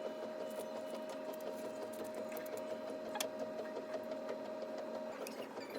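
A small machine running with a fast, even clatter and a steady hum; the hum stops about five seconds in while the clatter goes on.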